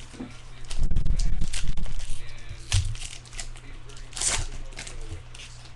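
Foil card pack wrappers crinkling and tearing as packs are opened, with a sharp rip about four seconds in. Dull bumps of handling sound about a second in.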